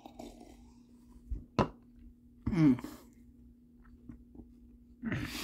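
A person in pain from the burn of a hot pepper: a sharp knock about a second and a half in, then a short groan that falls in pitch, and a loud breath out near the end, over a faint steady hum.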